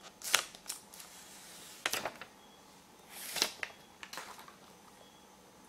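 Plastic protective film being peeled off a new Samsung Galaxy Note 5's screen and the phone handled: a series of short, soft crinkles and rustles.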